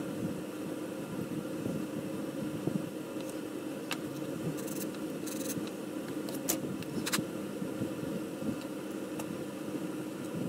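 A steady background hum runs throughout, with a few light clicks and taps, some in quick pairs, around the middle as small plastic model car parts are handled and fitted together.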